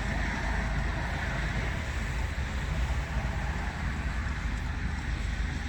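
Steady engine and road noise of a vehicle driving along, with a low rumble and no distinct events.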